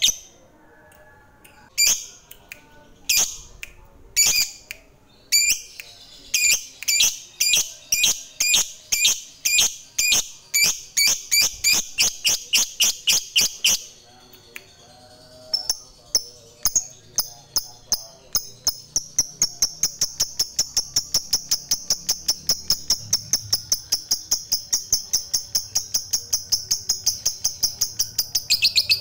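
Lovebird chattering (ngekek) in long strings of short, sharp, high-pitched calls. It starts with a few spaced calls, then keeps up about two a second, stops about fourteen seconds in, and then runs a faster unbroken series of about four to five calls a second.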